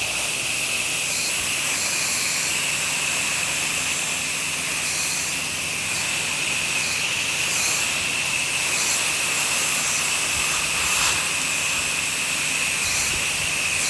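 Pressure washer wand spraying steadily, a loud continuous hiss of water jet applying soap solution, with the machine's engine humming faintly underneath.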